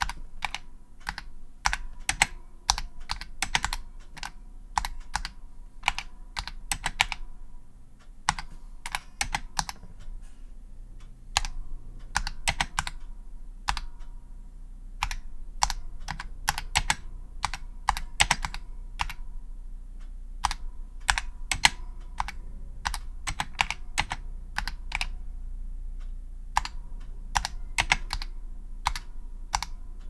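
Typing on a vintage Maxi Switch magnetic reed keyboard with linear switches and original flat Comptech SA keycaps: sharp keystroke clacks at an irregular pace, several a second, with short pauses between bursts.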